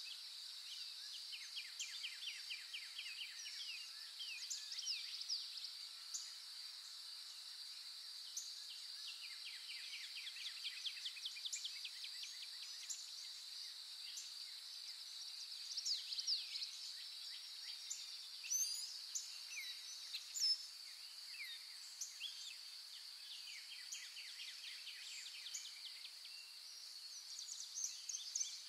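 Steady high-pitched insect drone with birds calling over it: several rapid trills of short falling notes and scattered chirps.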